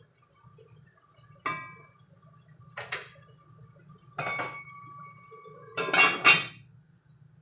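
Cookware clinking and knocking: a few sharp strikes, one left ringing for over a second, then the loudest clatter about six seconds in as the lid is set on a granite-coated cooking pot.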